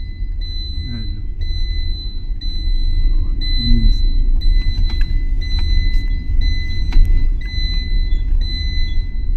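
Car driving, heard from inside the cabin: a loud, steady low rumble of engine and road, with the car's warning chime beeping over and over, roughly once a second.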